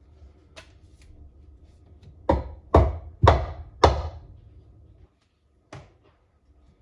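Pieces of wood knocking, four loud knocks about half a second apart in the middle, with a few lighter knocks before and one after.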